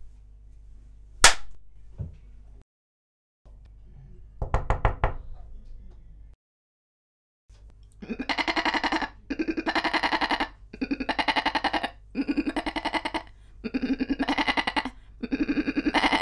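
Slap sound effects: one sharp slap, a lighter one just after, then a quick rattling run of slaps. From about eight seconds in, a goat bleats six times in a row, each bleat about a second long with a quavering tremble.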